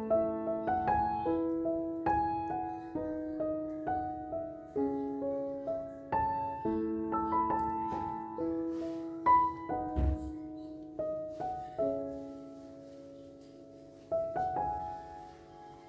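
Background music: a gentle solo piano melody of struck notes that ring and fade, thinning out near the end.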